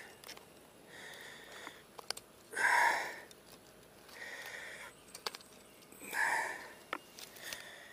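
A person breathing hard close to the microphone: five audible breaths about one and a half to two seconds apart, the loudest a little before the halfway point, with a few faint clicks from handling in between.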